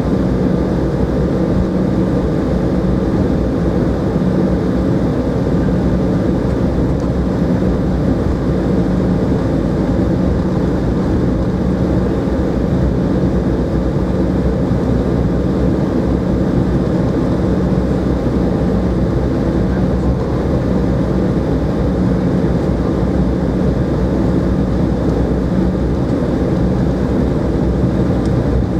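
Cabin noise inside an Embraer 190 taxiing, heard from a seat over the wing: a steady hum from its General Electric CF34-10E turbofans at taxi power, with a constant low tone.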